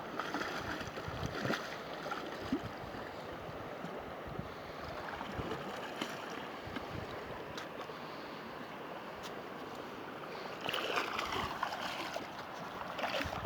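Steady rushing of river water with wind on the microphone, a few light knocks, and a louder spell of noise about eleven seconds in.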